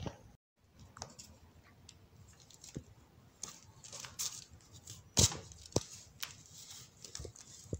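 Fingers crushing and crumbling dry, sandy baking-soda clumps, giving scattered crisp crunches and crackles over a soft patter of falling powder. The loudest crunch comes about five seconds in. The sound drops out briefly about half a second in.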